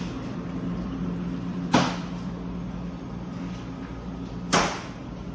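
Steady low machine hum, with two sharp knocks about three seconds apart.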